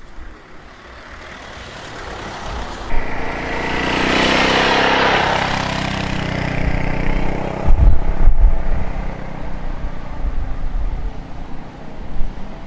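A motor vehicle's engine running close by, growing louder to a peak about four to five seconds in and then easing off, as if driving past. A few low thumps come about eight seconds in.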